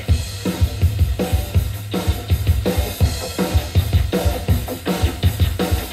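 A song with a steady drum beat from an FM stereo station, received by a Pioneer TX-606 tuner and played through a Yamaha A-400 amplifier's loudspeakers.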